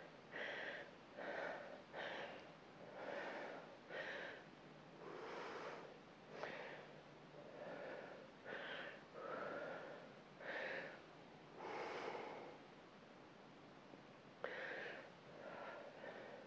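A woman breathing hard through her mouth from exertion during resistance-band pull-downs, inhaling and exhaling about once a second. Near the end there is a short lull, then a single light click.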